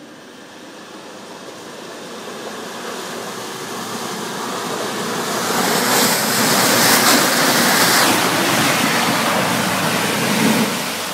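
Four-wheel-drive SUV ploughing through deep mud with its engine running, its tyres churning up splashing mud and water. The noise builds steadily as it approaches and is loudest from about six to ten seconds in as it passes close.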